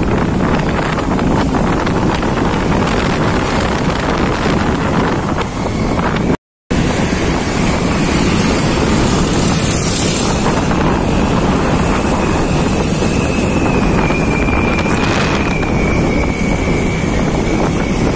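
Wind buffeting the microphone over the steady road and engine noise of a moving motor scooter in traffic. The sound cuts out for a moment about six seconds in, and a thin steady high whine joins from about eight seconds in.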